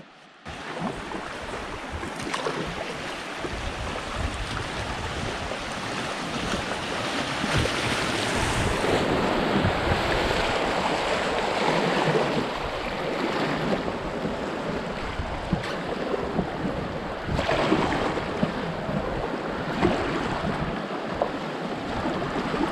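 River water rushing through riffles and small rapids and splashing around a kayak's bow, with wind rumbling on the microphone. The rush starts about half a second in and grows louder over the first several seconds.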